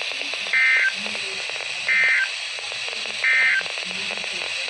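Three short, identical bursts of EAS/SAME digital data tones, about 1.3 seconds apart, over a steady radio hiss. They are the end-of-message (NNNN) code that closes the alert.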